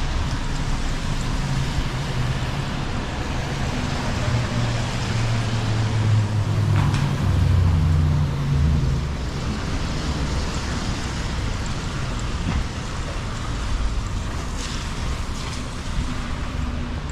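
Traffic on a wet city street in the rain: a steady hiss of rain and tyres on wet road, with a vehicle's engine hum growing and passing close about six to nine seconds in.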